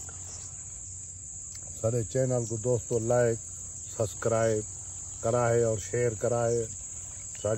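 Steady high-pitched drone of insects in the field, under a man's voice talking in short phrases from about two seconds in.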